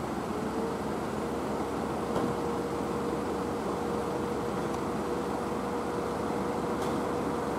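Steady city street background noise, a low even rumble with no distinct events. A steady hum tone comes in about half a second in and holds.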